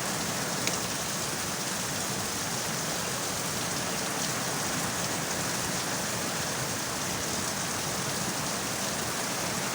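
Steady hiss of background noise with the sound of rain, with one faint click about 0.7 seconds in.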